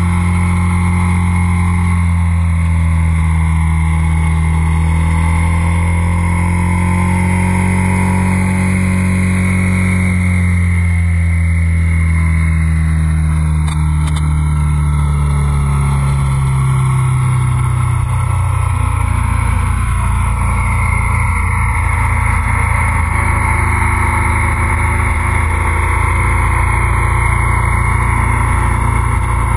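Motorcycle engine running under way at road speed, its pitch climbing over the first several seconds, easing back down around the middle, then holding steady at a lower note, with a steady rush of wind noise over the camera microphone.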